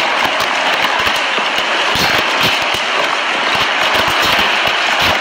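Tornado wind and heavy rain: a loud, steady rush of noise. Gusts buffet the microphone with irregular low thumps, and a dense crackle of rain or debris strikes runs through it.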